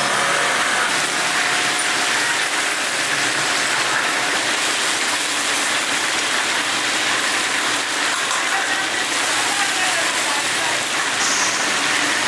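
Food deep-frying in a large wok of hot oil: a steady, crackling sizzle.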